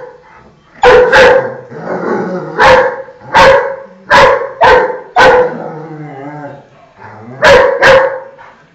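Young German Shepherd barking at play, about nine sharp barks, several in quick pairs, with a quieter wavering whine in a pause around six seconds in.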